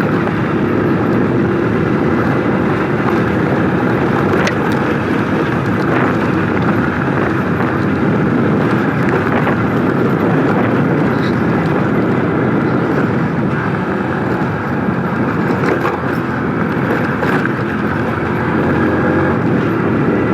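Motorcycle engine running steadily while the bike is ridden over a rough off-road dirt track, with a few faint sharp knocks.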